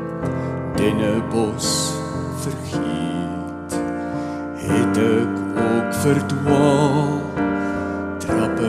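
Digital piano playing chords and a melody, notes struck one after another and left to ring. A wavering, held melody line sounds over the piano from about halfway through.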